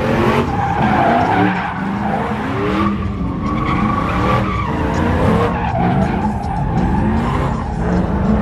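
Pickup truck spinning donuts: its engine revs in quick, repeated rises while the rear tyres spin and squeal in a smoky burnout.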